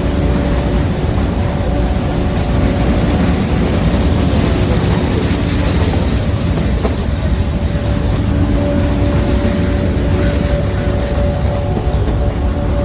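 Nilgiri Mountain Railway metre-gauge toy train running, a steady loud rumble with wheel clatter on the rails and faint steady tones held above it.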